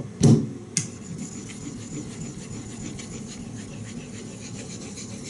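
Steel knife blade stroked back and forth across a wet Shapton 5000-grit water stone loaded with Tenjo nagura slurry, a steady gritty rubbing; the stone is cutting fast. A few knocks in the first second.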